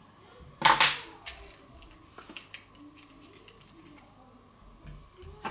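Plastic clock-movement housing handled and worked apart by hand: one louder sharp click with a short scrape near the start, then a few small faint plastic clicks.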